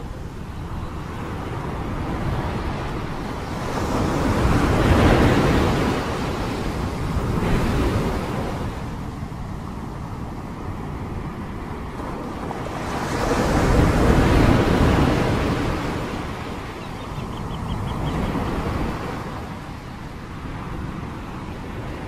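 Rushing floodwater and storm waves washing over pavement, swelling and falling several times, loudest about five and fourteen seconds in.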